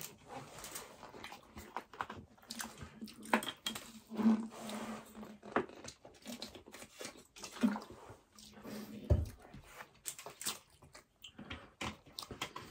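Close-miked eating: wet chewing, lip smacks and clicks in an irregular run, with gulps of water drunk from a plastic bottle.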